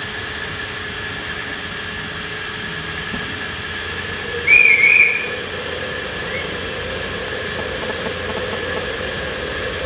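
Miniature 7¼-inch gauge steam locomotive hissing steam steadily, with one short, high whistle blast about four and a half seconds in.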